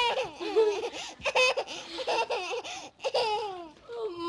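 A toddler laughing and babbling in short high-pitched bursts.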